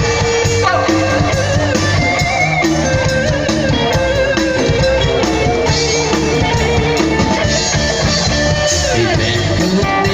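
Loud amplified band music with guitar over a steady beat, the instrumental intro of a Thai pop song.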